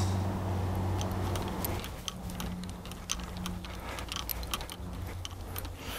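Light, irregular metallic clicks and clinks of golf clubs knocking together in a carried golf bag, over a low steady hum that shifts in pitch about two seconds in.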